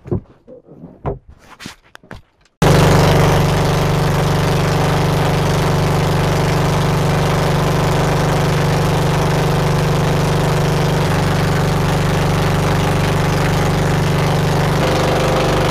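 Engine of a motorized outrigger fishing boat (banca) running steadily at cruising speed, heard from on board. It cuts in abruptly about two and a half seconds in.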